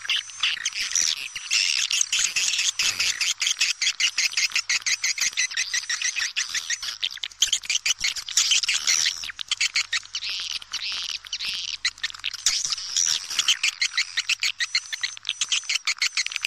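Swiftlet calls from a swiftlet-house lure recording: a dense, continuous chatter of fast, high chirps and twitters, many per second, from several birds at once. It is a call track of the kind played to draw swiftlets into a nesting house.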